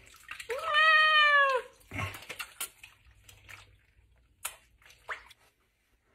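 A hairless Sphynx cat, wet and held in the sink for a bath, lets out one long meow about half a second in that rises and then slowly falls. A few faint clicks and splashes follow.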